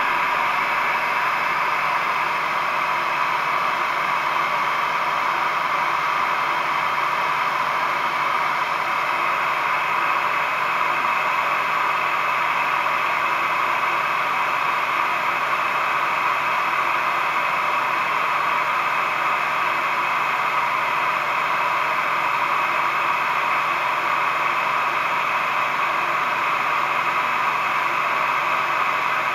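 Heat gun running on its cool setting, a steady even blower hiss.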